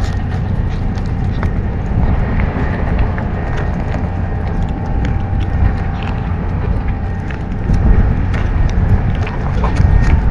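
A kitten eating chunks of wet cat food from a paper plate right at the microphone: quick, irregular chewing and lapping clicks. Under it runs a steady, loud low rumble of wind on the microphone.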